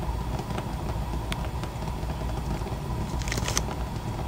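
Gas stove burner running under a hot wok, a steady low rumble, with a few light clicks about a second in and again near the end.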